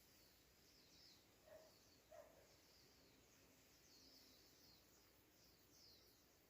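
Faint birds chirping: a run of short, high, downward-sliding chirps, with two brief lower calls about one and a half and two seconds in.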